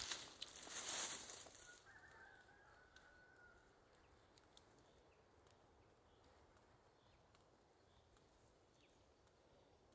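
A brief rustling scrape in the first two seconds, from hands and jacket while a sap tube is fitted into a birch trunk. A faint bird call follows, then near silence with a few faint ticks.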